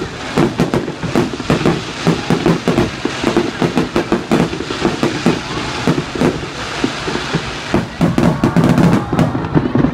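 Fireworks barrage: a rapid, overlapping string of shell bursts, several bangs a second. The bangs stop just before the end.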